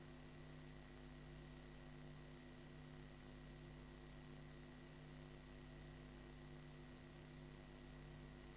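Near silence: the steady electrical hum and hiss of a blank stretch of videotape playing back, with no programme sound.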